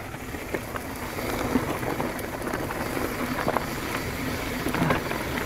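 Mountain bike tyres rolling fast over loose dirt and gravel: a steady gritty hiss with scattered small clicks and knocks.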